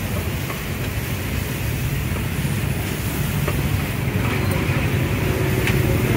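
Street traffic with motorbike engines running steadily, growing louder toward the end as one passes close by. A few light clinks of a metal spatula against a frying pan.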